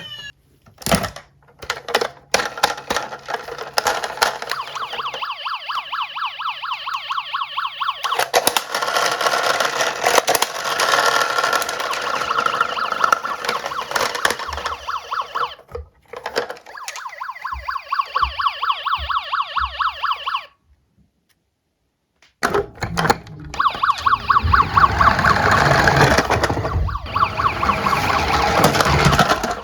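Emergency-vehicle siren sounds, a fast pulsing warble, with many sharp clicks and rattles of toy cars running down a slope. The sound drops out to silence for about two seconds some two-thirds of the way through.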